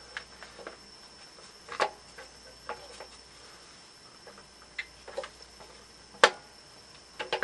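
Scattered small clicks and taps of a Briggs & Stratton Quantum engine's plastic air cleaner base and hose being handled and pressed into place on the carburetor, a few irregular ticks with the sharpest click about six seconds in.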